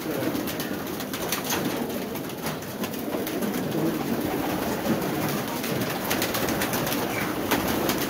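A loft full of domestic pigeons cooing together in a steady, continuous chorus, with many short flutters and claps of wings as birds take off and land.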